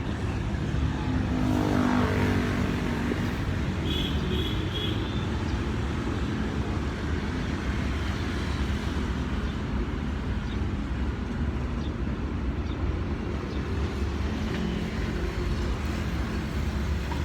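Steady rumble of road traffic, with a motor vehicle passing about two seconds in and three short high chirps a couple of seconds later.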